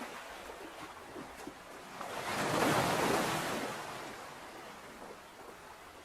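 Ocean wave surging in and washing back over a steady background of surf. The wave swells about two seconds in, is loudest around three seconds, and ebbs away over the next two seconds.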